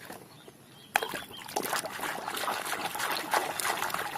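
Water running and splashing over a toy as it is washed, starting suddenly about a second in.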